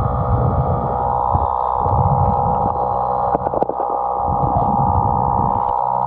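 Sound picked up underwater by the camera: a steady mechanical hum with several fixed tones, like a motor heard through the water, with low rushing surges of water every second or two. There is a brief clatter about three and a half seconds in.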